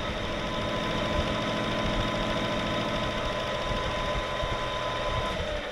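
Metal lathe running, its spinning chuck driving a facing cutter that mills a flat on a hardened steel differential cross pin. A steady machine noise with a thin whine that stops about five seconds in.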